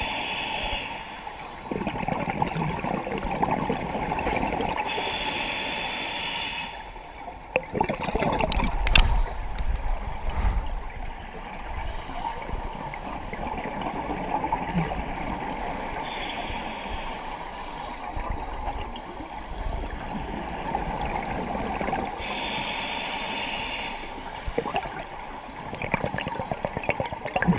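Scuba diver breathing through a regulator underwater: a hissing inhale about every five to six seconds, with gurgling exhaled bubbles between. A few sharp knocks about eight to nine seconds in.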